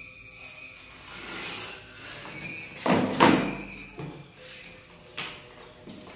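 Workbench handling sounds: a pen scratching along a steel ruler on a foam wing, then a louder scraping knock about three seconds in as the steel ruler is slid across the wooden table. Smaller knocks follow.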